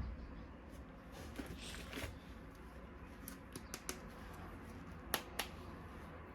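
Scattered faint clicks from toy parts being handled, with two sharper clicks a little after five seconds in.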